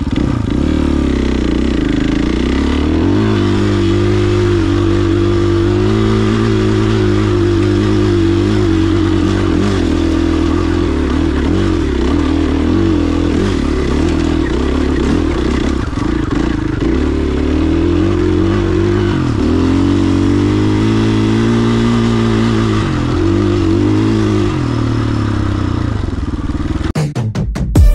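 Single-cylinder four-stroke engine of a KTM 500 XCF-W dirt bike under way on a trail, its pitch rising and falling repeatedly. The engine sound cuts off about a second before the end.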